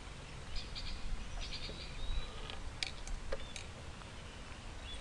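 Quiet outdoor ambience: a steady low rumble with faint, short high chirps and a few sharp clicks scattered through it.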